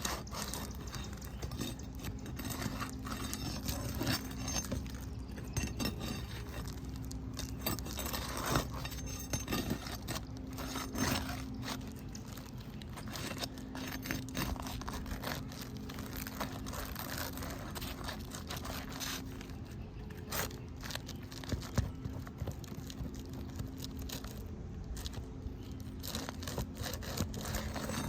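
Hail-damaged asphalt roof shingle being pried up and worked by hand: irregular scraping, crinkling and small clicks of the shingle and its granules as it creases and tears.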